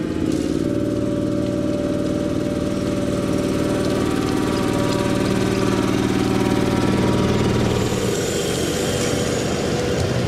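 Small engine of a ride-on scale-model locomotive running steadily as it passes close by, fading out about eight seconds in.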